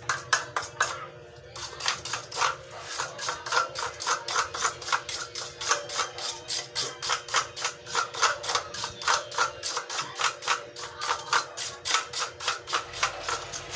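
Rapid, even metal tapping, about five sharp strikes a second, beginning after a short pause near the start.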